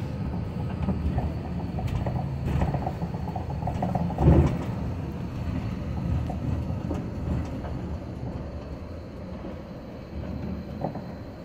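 Tour bus running, heard from inside the cabin: a steady low engine and road rumble, with a loud knock about four seconds in.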